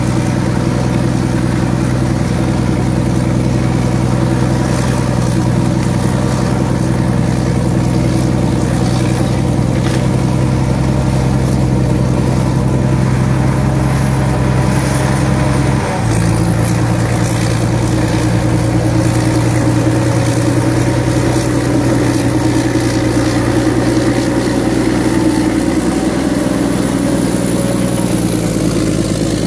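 Heavy diesel engine of a Caterpillar D8 bulldozer running steadily while the dozer pushes dirt and brush. The engine pitch shifts abruptly about halfway through.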